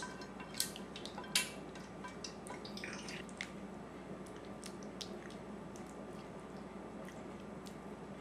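Faint wet squelching and light clicks of a silicone spatula spreading tomato sauce over pasta in a ceramic casserole dish, with two sharper clicks in the first second and a half.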